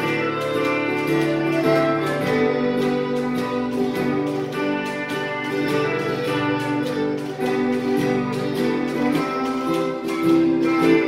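Instrumental break in a song: acoustic guitar strummed in a steady rhythm under a sustained melody line, with no singing.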